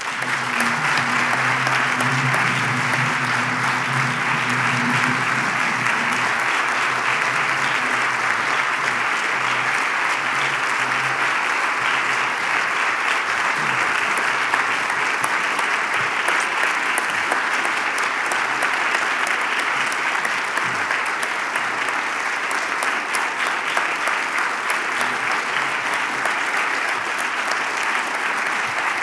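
Audience applauding steadily at the close of a speech, with a faint low steady tone under the clapping for the first several seconds.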